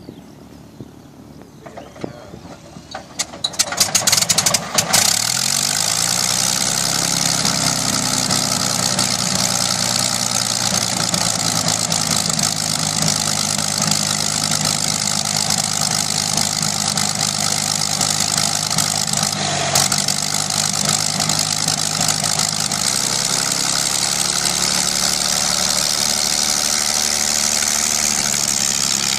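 Curtiss P-40 Warhawk's V12 aircraft engine cold-starting: sharp pops and coughs as it turns over, catching about four to five seconds in, then running steadily at idle, its pitch rising briefly as it settles.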